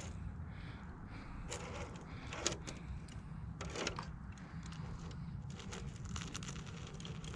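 Traxxas TRX-4 RC crawler driving over rough ground: its brushed electric motor and gears run with a steady low hum, under scattered clicks and crunches of tyres and chassis on rock.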